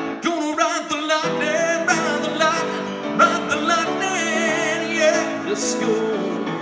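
Song continuing: a man's voice sings a drawn-out, wordless melodic line with vibrato over instrumental backing.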